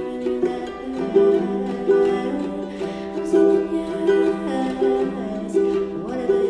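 Music: a plucked string instrument picking a repeating pattern of bright notes, about two a second, over a lower held note.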